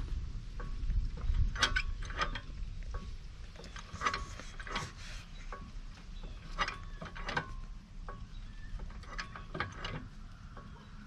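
Hammer strikes on the steel frame rail of a 1994 Ford Ranger, about eight of them roughly in pairs, each with a short metallic ring. The rail is held under tension by a chain frame puller, and the taps help the bent rail move back into line.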